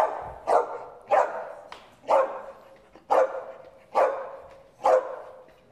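Poodle barking single barks at a steady pace, about one a second, seven times. It is counting out the answer to a sum on cue, part of a run of ten barks.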